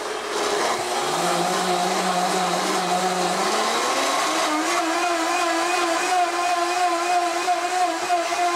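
Blendtec blender running at high speed with a jar of water, its motor and spinning blade making a steady whine. One note climbs in pitch between about one and four seconds in, then holds steady.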